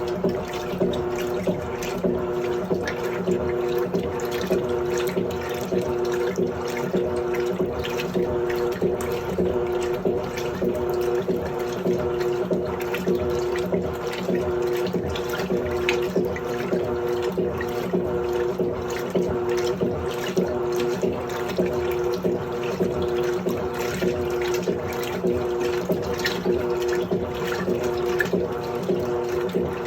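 Washing machine running, with water flowing and splashing inside it over a steady hum that pulses regularly.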